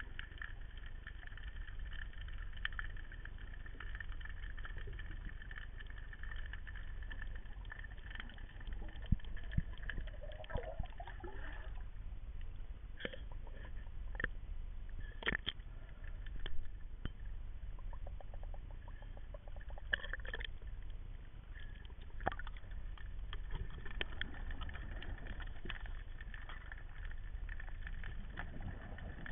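Muffled underwater sound picked up by a camera in a waterproof housing: a steady low rumble of water, with scattered sharp clicks and knocks and a brief gurgle about ten seconds in.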